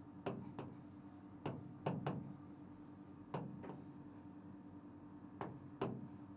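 Marker writing on a whiteboard: about nine short, scratchy strokes in irregular clusters as a word is written, over a faint steady hum.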